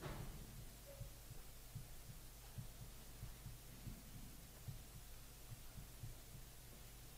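Near silence: room tone with a steady low electrical hum and faint, irregular soft low thumps.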